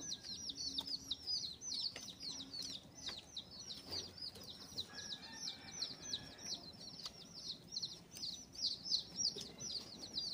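Small birds chirping without pause: a dense run of short, high, falling notes, several a second, overlapping one another.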